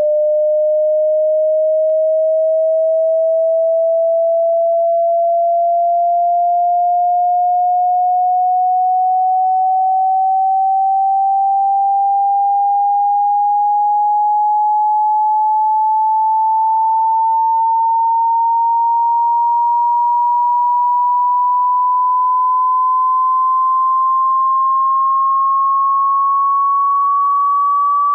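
Hearing-test frequency sweep: a single pure sine-wave tone at a constant loudness, rising slowly and smoothly in pitch by about an octave.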